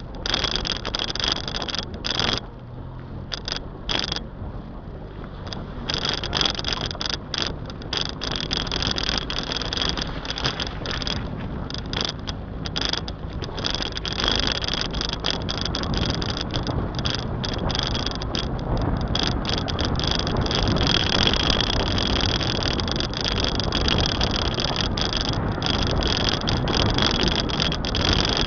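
Wind and road noise from a moving car, with its engine running underneath; the noise grows steadily louder over the second half as the car picks up speed.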